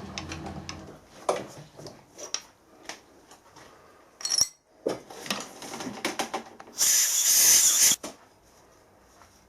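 Metal tools and parts handled in a machine shop after tapping a thread: a low machine hum stops about a second in, then come scattered clicks and knocks, and a loud hiss about a second long near the end.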